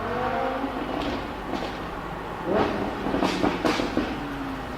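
Lamborghini Huracán LP610-4's V10 engine revving, its pitch rising and then falling away, followed by a series of sharp exhaust crackles and pops, most of them between about two and a half and four seconds in.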